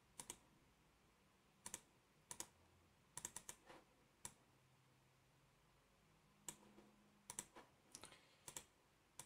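Faint, sharp computer mouse clicks at irregular intervals, several in quick pairs.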